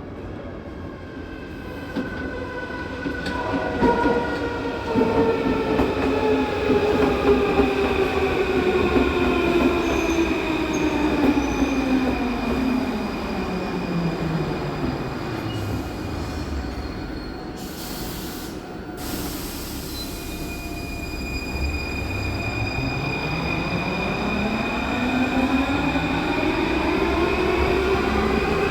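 MF01 Paris Métro train arriving and departing. Its traction motors whine, falling steadily in pitch as it brakes to a stop, and a short burst of hiss comes while it stands about halfway through. The whine then rises steadily again as it pulls away.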